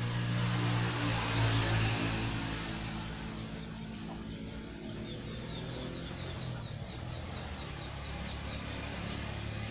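An engine running with a steady low hum, loudest in the first two seconds and then settling to an even level. Faint bird chirps come in from about halfway through.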